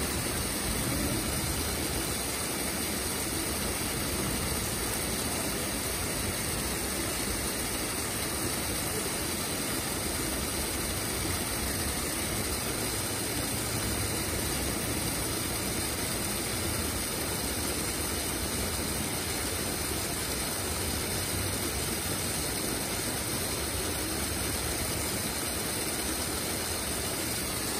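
Steady rush of a waterfall: an even, unbroken noise that holds the same level throughout.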